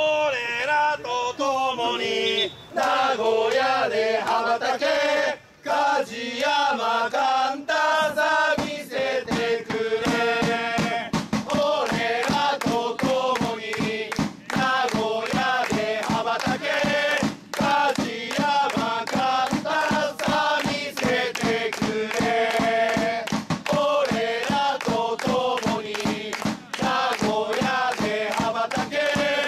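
Football supporters singing a player's chant together in unison, joined by a fast, steady beat from about eight seconds in.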